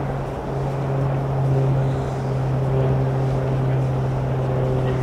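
A steady low hum from a running motor, holding one low pitch with fainter overtones above it.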